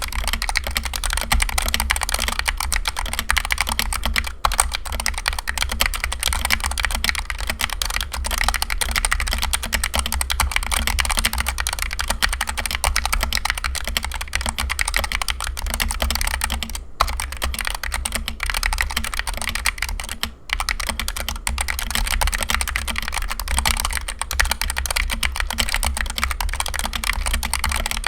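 Fast, continuous typing on a Punkston TH61 60% optical keyboard with stock Gateron red linear optical switches. The keys clack rapidly, with a few brief pauses.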